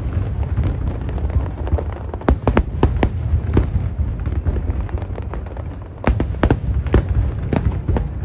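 Aerial fireworks display: a rapid series of sharp bangs and cracks from bursting shells over a continuous low rumble, heaviest about two to four seconds in and again from about six seconds.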